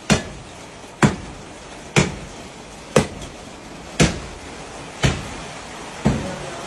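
Sharp knocks repeating steadily about once a second, each dying away with a short ring.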